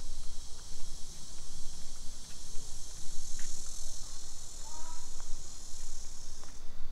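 Insects shrilling in a steady high-pitched drone that cuts off suddenly near the end, over low rumbling background noise.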